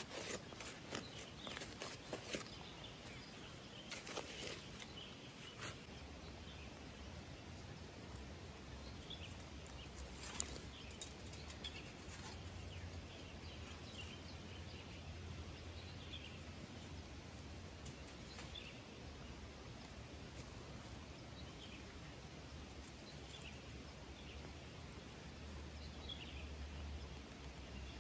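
Soft scrapes and knocks of soil being worked by hand over the first few seconds. After that a bird chirps briefly every second or two over a steady low hum.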